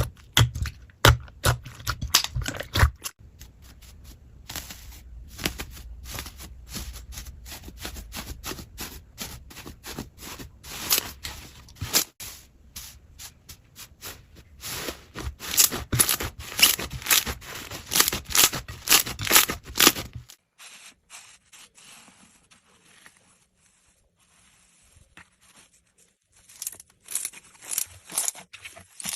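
Slime being handled, making a dense run of sharp crackling and clicking pops. About twenty seconds in it drops to faint crackles, and the sharp clicks return near the end.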